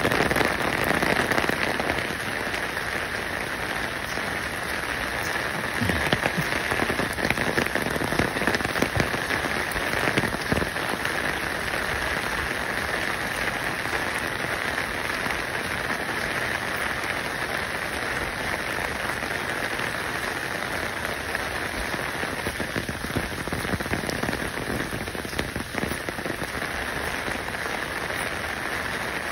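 Steady rain-like patter: an even hiss thick with fine crackling, with a few louder ticks between about six and eleven seconds in.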